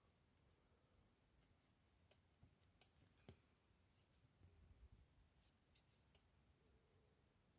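Near silence with scattered faint clicks of metal knitting needle and crochet hook tips touching as stitches are slipped from the needle onto the hook.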